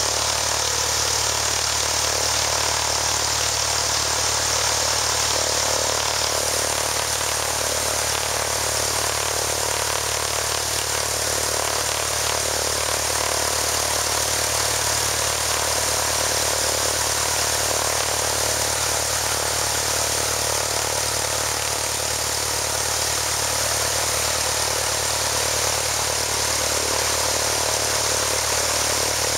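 Propeller aircraft's piston engine running steadily on its first run after an engine overhaul.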